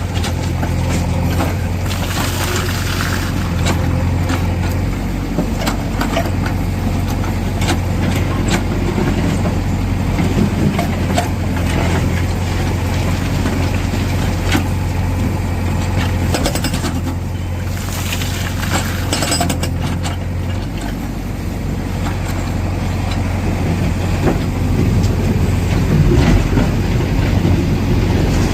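Diesel engine of a Tata Hitachi Shinrai backhoe loader running steadily, with scattered sharp knocks and metallic clatter throughout.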